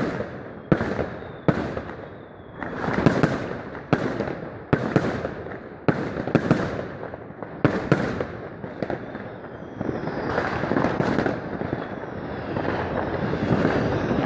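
New Year's Eve fireworks bursting overhead: a run of sharp bangs a little under a second apart, giving way to denser crackling over the last few seconds.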